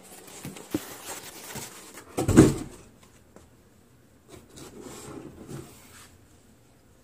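Rustling and handling noise from someone moving about a cluttered storeroom with a handheld camera, with scattered clicks and one loud thump about two and a half seconds in.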